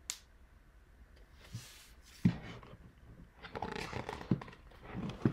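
Picture book being handled and a page turned: a sharp knock about two seconds in, then paper rustling and scraping.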